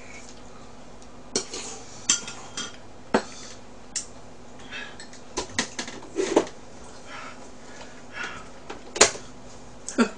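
Scattered clinks and clicks of chopsticks and tableware against bowls and a plastic takeout tray, with a few short rustles between them; the sharpest clink comes about nine seconds in.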